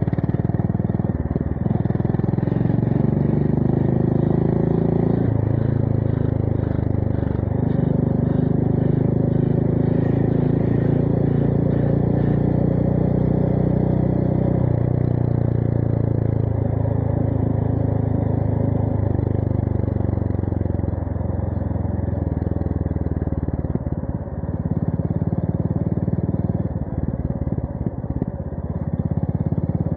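Honda GB350S's single-cylinder engine through a MILLER Spitfire slip-on exhaust, under way: it pulls up through a few gear changes in the first seconds, holds a steady cruise, then eases off to a lower, rougher running in the last few seconds.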